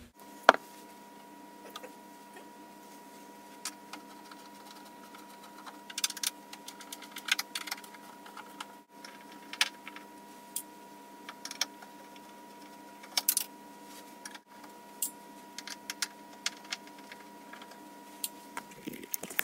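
Scattered clicks, taps and light rattles of plastic and metal panels and screws being handled as a rear-projection TV cabinet is taken apart, with one sharp knock about half a second in, over a steady faint tone.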